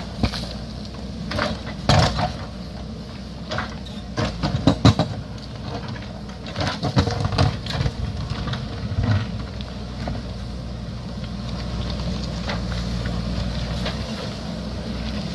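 JCB backhoe loader's diesel engine working under load, with the bucket scraping and rocks knocking and cracking in quick irregular strikes during the first half. After about nine seconds the knocks stop and the engine runs on steadily.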